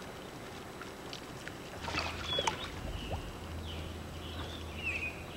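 Small fishing boat on a lake, with a steady low hum starting about two seconds in and a few clicks around the same time. Short high chirps, like birds, come and go over it.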